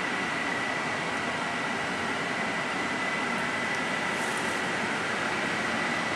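Steady cabin noise inside a double-decker bus's upper saloon: an even hiss with a thin, steady high whine running through it.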